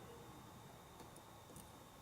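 Near silence with two faint clicks of a lock pick working the wafers of a Chicago wafer lock held under a tension wrench, about a second in and again about half a second later.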